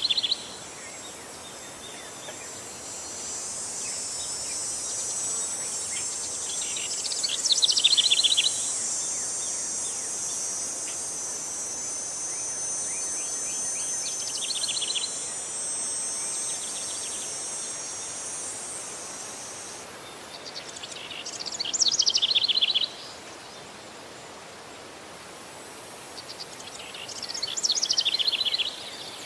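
Outdoor nature ambience: a songbird repeats the same short, falling trilled phrase about every six to seven seconds. Under it runs a steady high insect trill that fades out about two-thirds of the way through.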